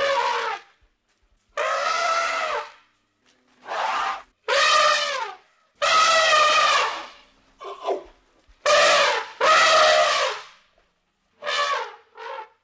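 Elephant calves trumpeting: a string of about ten short, high calls, each under about a second long, with brief gaps between them and the pitch bending slightly within each call.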